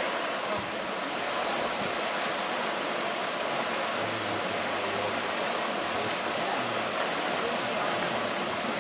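Shallow rocky stream running fast over stones and riffles: a steady rush of water.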